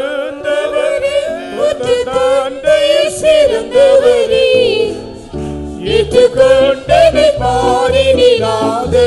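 A Christian devotional song sung by voice, the melody wavering with vibrato. About five seconds in, low bass accompaniment notes join in a steady rhythm.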